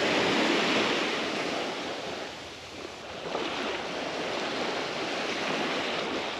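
Small waves of the shore break washing onto the sand. The wash is strongest in the first second or so, eases off near the middle, then runs on steadily.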